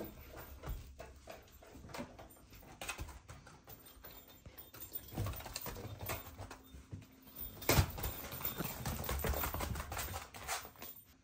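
Shiba Inu's footsteps on tatami mats and a wooden floor: paws padding and claws clicking in clumsy, thudding steps, with a sharp knock about three quarters of the way in.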